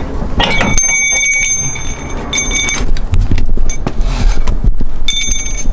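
Metal brake parts being handled and knocked together, giving off a clear bell-like ring three times over low handling knocks and rumble.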